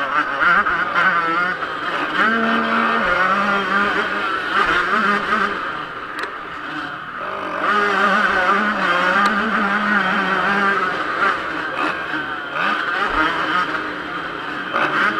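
Yamaha YZ125 two-stroke motocross engine at full race effort, heard onboard, revving hard with its pitch climbing and falling as the throttle is opened and backed off. It eases off briefly about six seconds in and again near twelve seconds.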